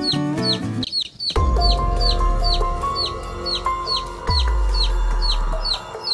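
A chick's high, short, falling peeps, evenly repeated about three times a second, over background music that dips briefly about a second in and returns with a deep bass.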